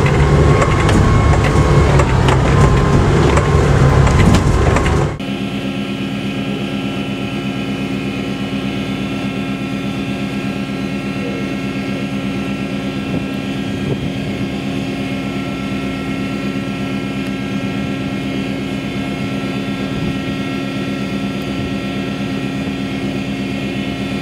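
Loud rush of a small rescue boat's engine, wind and water heard on board in a rough sea, cutting off sharply about five seconds in. A steady machinery drone with several unchanging tones follows, heard from the larger vessel watching the boat.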